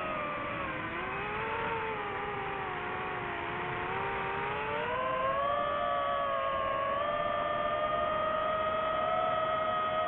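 DJI FPV drone's motors and propellers whining, several tones together. The pitch sinks over the first few seconds, climbs again around the middle, then holds steady.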